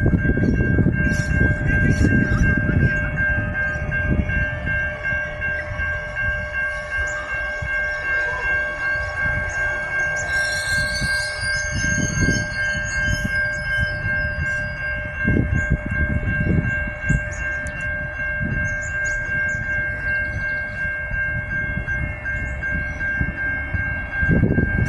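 Adelaide Metro 4000 class electric multiple unit arriving and standing at the platform, giving a steady high-pitched electrical whine over a low rumble.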